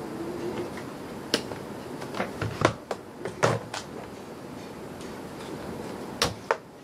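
Sharp plastic clicks and knocks from handling a quadcopter and its radio transmitter on a workbench: a cluster of them between about one and four seconds in, and two more near the end, over a steady background hiss.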